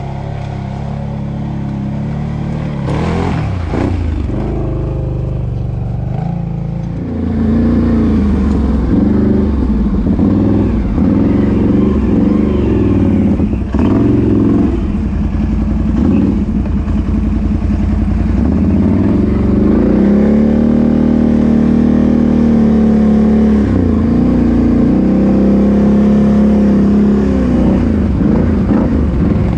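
ATV engine revving hard under throttle. It gets louder about a quarter of the way in, then its pitch swings up and down again and again, and it is held high for a few seconds later on.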